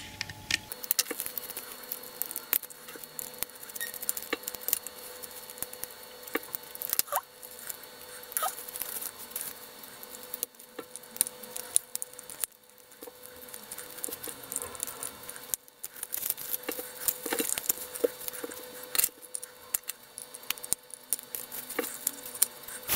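Small irregular clicks, taps and scrapes of plastic parts being handled as the tender of a Roco BR 01 104 model steam locomotive is uncoupled, unscrewed and its plastic body pulled off the chassis.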